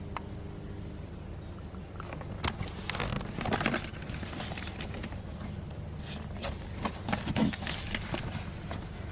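Handling noises: scattered clicks, taps and short rustles, bunched about two and a half to four seconds in and again around six to seven and a half seconds, over a steady low hum.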